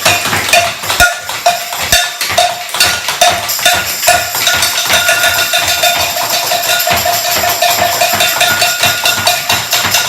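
Loud, fast, irregular banging and rattling of percussion-style noisemakers, with a steady tone sounding underneath.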